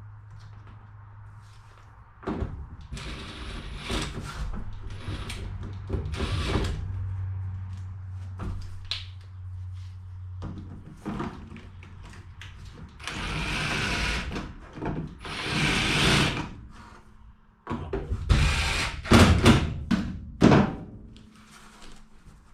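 Power drill driving self-tapping screws into the sheet-metal fender patch of a school bus, in a couple of short runs, with sharp metal knocks and clanks near the end.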